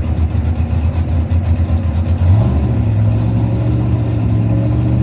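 Drag race car engine running unevenly at a low note. About two seconds in it steps up in pitch and holds at a steady higher speed.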